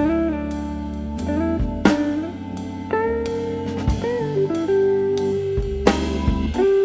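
Instrumental background music: a guitar playing sustained, bent notes over a drum kit with regular beats.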